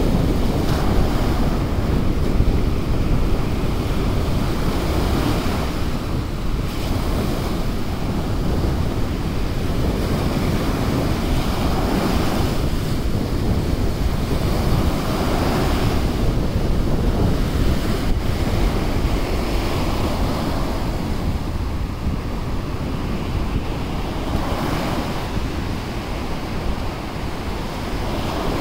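Small surf breaking and washing up a sandy beach, a fresh wave swelling in every few seconds, with wind buffeting the microphone as a steady low rumble.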